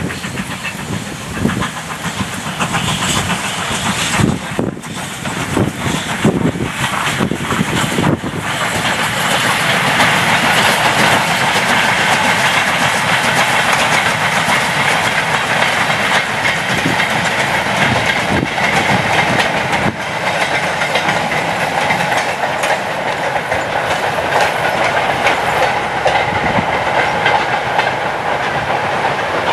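Goods train hauled by the GWR Hall class 4-6-0 steam locomotive 4953 Pitchford Hall passing, its wagons' wheels clattering over the rail joints. The sound is uneven for the first several seconds, then a steady running noise from about nine seconds in.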